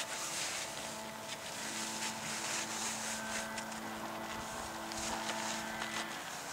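A steady engine hum with a few held pitches that stops shortly before the end, under short crunching scrapes of snow being worked by gloved hands.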